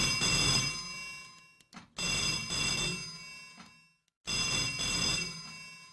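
Antique telephone's bell ringing: three rings about two seconds apart, each starting sharply and dying away.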